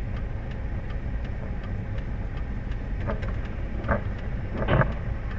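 Steady low rumble of a car on the move, road and engine noise, with two short, louder sounds near the end.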